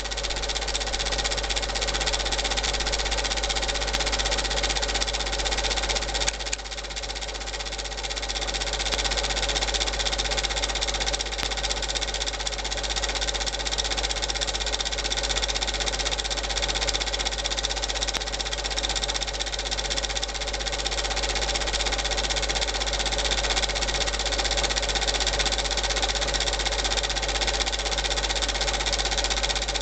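Super 8 film projector running: a steady mechanical whir from the motor and film transport, with a constant low hum underneath.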